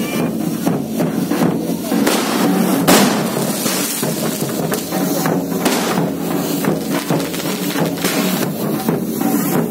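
Ground fountain fireworks spraying sparks, a continuous hiss with crackles, over loud festival music with drumming. There is a sharp bang about three seconds in.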